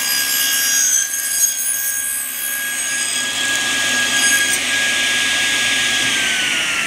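Table saw running with a steady whine while its blade cuts through a hardwood frame rail held in a tenoning jig, clearing waste from a bridle-joint tenon; the cutting noise ends about two-thirds through. Near the end the saw is switched off and its whine falls as the blade spins down.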